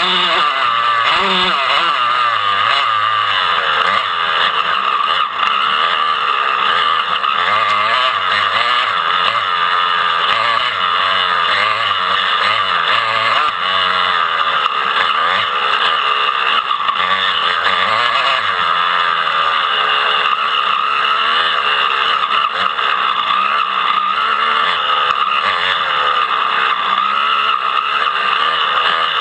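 Motocross dirt bike engine running hard, its pitch rising and falling without a break as the throttle opens and closes.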